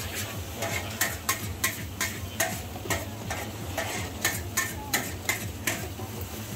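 Metal spatula striking and scraping a hot wok in quick, regular strokes, about two or three a second, with frying sizzle underneath, as char kway teow is stir-fried.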